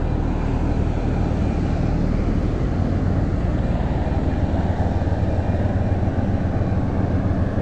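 Steady low rumbling noise of wind buffeting an action-camera microphone, with no distinct clicks or tones.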